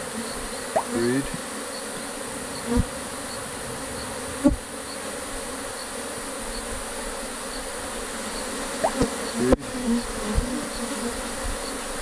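A honey bee colony buzzing steadily over an open Langstroth hive, with a few sharp knocks of a metal hive tool prying frames apart, the loudest about four and a half and nine and a half seconds in.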